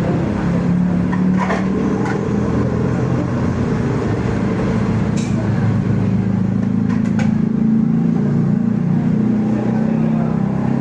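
An engine running steadily, its pitch wandering slightly, with a few light clicks over it.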